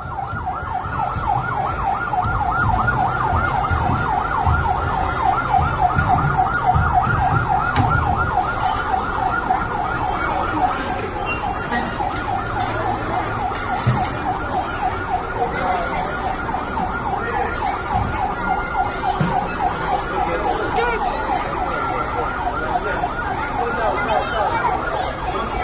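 Siren of a child-size mock fire engine, a fast warbling wail, strong for about the first ten seconds and then fainter.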